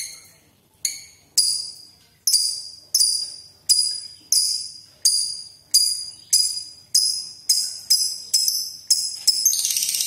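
A small songbird calling a series of sharp, high, ringing notes, each fading quickly, speeding up steadily until they run together into a continuous trill near the end.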